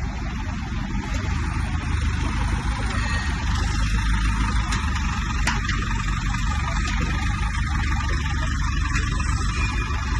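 15 kVA diesel generator's engine running steadily with a low, even drone, with a couple of faint clicks near the middle.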